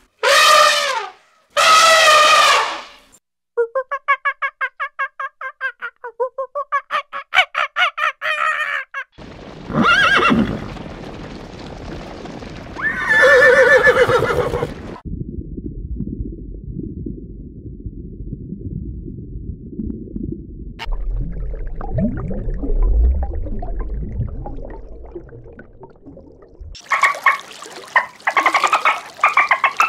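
A run of different animal calls: first a few loud calls and a fast rapidly pulsing call, then a horse neighing and the low, rumbling drum of a galloping horse herd's hooves. Near the end come a bottlenose dolphin's high, wavering whistles and squeaks.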